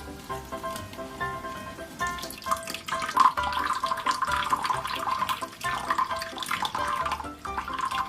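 Water running and splashing, loudest from a couple of seconds in, over light background music.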